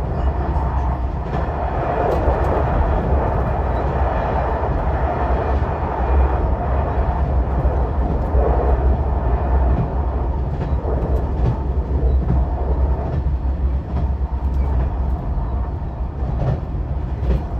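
Running noise of a JR West 273 series electric train heard from inside the passenger car: a steady low rumble with occasional faint clicks from the rails.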